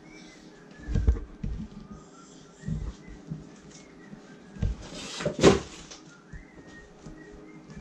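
Hands working play dough on a tabletop: a series of soft low bumps and knocks, with a louder rustling swish about five seconds in.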